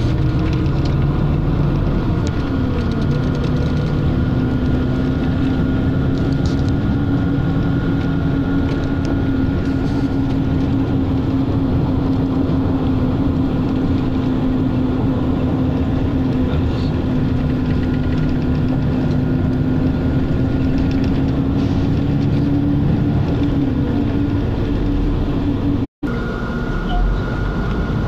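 Steady drone and rumble of a moving vehicle heard from inside, with a whining tone that dips in pitch near the start and climbs again near the end as the vehicle changes speed. The sound cuts out completely for a split second near the end.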